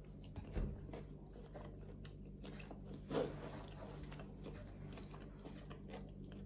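A person biting into a piece of bread and chewing it close to the microphone, with many small wet mouth clicks. A slightly louder mouth sound comes about three seconds in.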